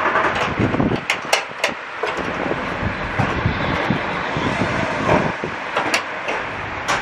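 Metal clicks and clinks as a nut and washer are fitted and tightened with a socket wrench against a stainless steel sheet-metal bracket, over a steady workshop hum. The sharpest clicks come in a cluster about a second in, with a couple more near the end.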